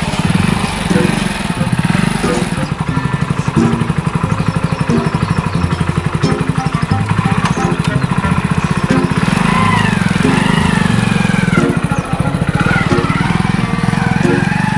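Single-cylinder engine of a Hero Splendor motorcycle running steadily, first at a standstill and then pulling away down a dirt track with two riders on board.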